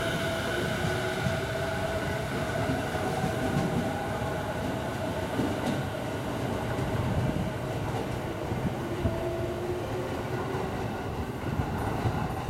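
JR East 209 series electric commuter train moving off past the platform: a steady running rumble of wheels on rail, with a high whine that fades out after the first few seconds as the last car goes by.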